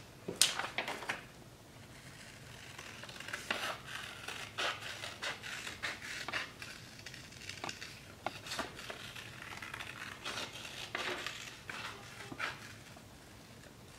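Scissors cutting construction paper: a string of short, uneven snips with paper rustling as the piece is turned, and a louder knock about half a second in.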